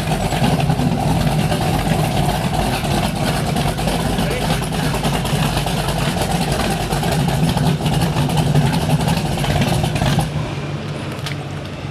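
Wellcraft Scarab 38KV speedboat's engines running steadily under way, a low hum under a dense rush of wind and water noise. About ten seconds in the rush drops away sharply, leaving a quieter engine hum.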